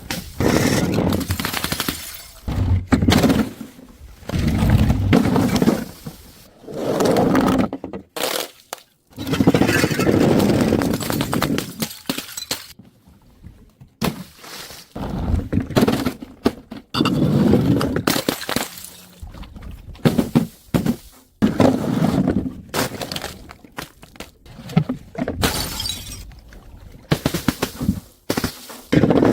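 A series of separate smashing, crunching breaks, one every second or two, as objects are broken and crushed.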